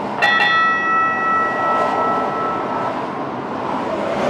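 Two quick metallic strikes, a fraction of a second apart, ringing on like a bell and dying away over about two and a half seconds, over steady background noise.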